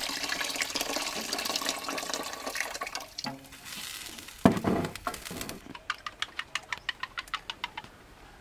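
Water pouring in a stream into a metal pot of soup for about three seconds. A sharp knock about four and a half seconds in, then rapid even clicking, about five a second, of chopsticks beating eggs against the side of a glass bowl.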